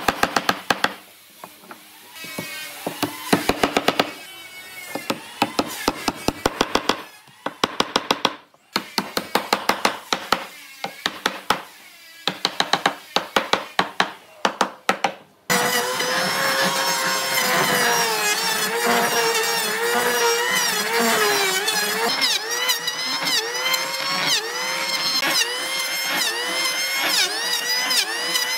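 Quick runs of strikes from a hardwood bar used as a mallet, driving wooden dowels into a pine tabletop, with short pauses between runs. About halfway through, an electric hand planer takes over and runs continuously, its pitch dipping and rising again with each pass across the boards.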